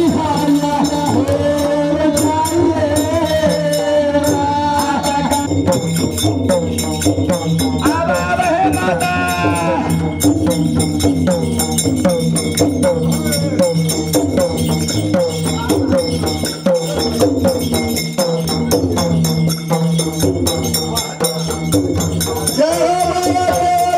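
Devotional folk music: a singing voice over hand drums and jingling percussion. The singing stops about five seconds in, leaving drums and jingles playing a steady rhythm, with a short sung phrase a few seconds later; the singing comes back near the end.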